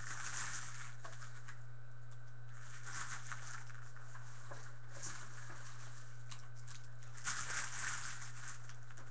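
Plastic wrapping rustling and crinkling in a few short bursts as it is handled, the loudest a little before the end, over a steady low electrical hum.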